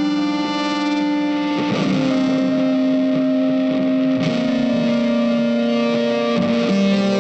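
Background music led by a distorted electric guitar playing long held notes that change every second or two.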